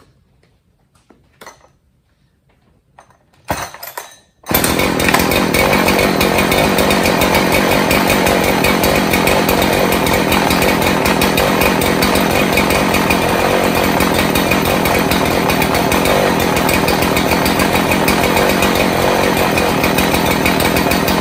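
Husqvarna 372 XP two-stroke chainsaw, freshly rebuilt with a new piston and cylinder, starting about four seconds in and then running steadily at a constant speed.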